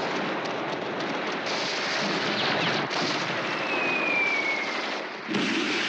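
Battle gunfire: a dense, continuous crackle of many shots and blasts, with a brief falling whistle about four seconds in.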